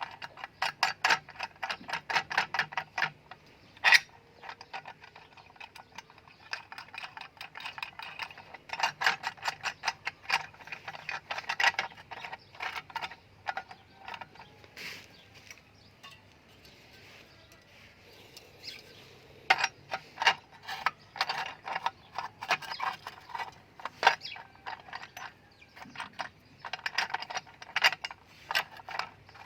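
Hand-tool work on metal: bursts of rapid, sharp clicking strokes, several a second, with pauses between the bursts.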